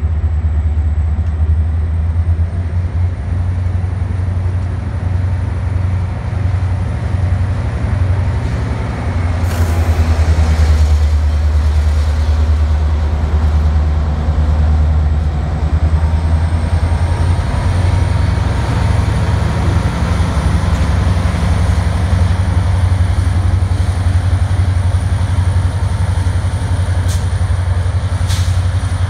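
Diesel-electric commuter locomotive (EMD MP36PH-3S) pulling a departing passenger train: a deep, steady engine drone that grows loudest as the locomotive passes close, about ten seconds in, with a faint high whine and a few sharp clicks.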